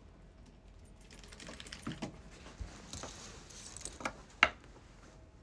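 Snow crunching underfoot: a run of irregular crackling crunches and clicks, the sharpest and loudest one shortly before the end.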